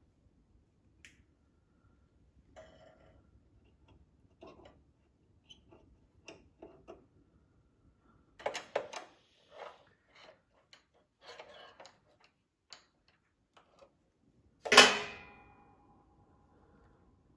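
Small metallic clicks and clatters of hand tools working a small engine's carburetor linkage, with one loud metal clank near the end that rings on briefly as a tool is set down on metal.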